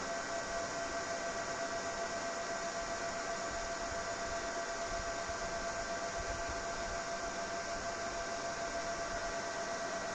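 Small 12 V, 6 W side-mounted ventilation fan running steadily: a constant airflow hiss with a thin, steady whine on top.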